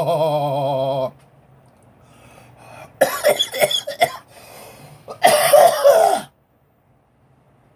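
A man's drawn-out, wavering moan of pain that ends about a second in, then two bouts of harsh coughing, around three and five seconds in, from the burn of the extremely hot One Chip Challenge chip (Carolina Reaper and Naga Viper peppers).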